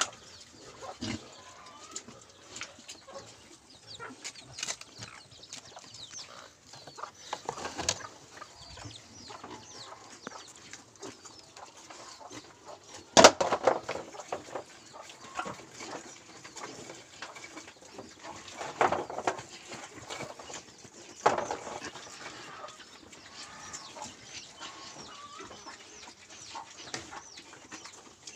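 Scattered farm-animal calls and small noises around a pen of piglets, with a sharp knock about thirteen seconds in and a couple of louder calls near nineteen and twenty-one seconds.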